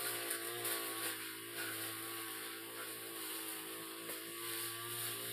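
Brush cutter engine running steadily while its blade cuts light grass, the pitch and level wavering slightly as it works.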